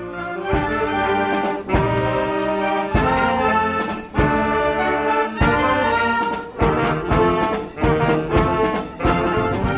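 Intro music led by brass, trombone and trumpet, playing chords that change about once a second.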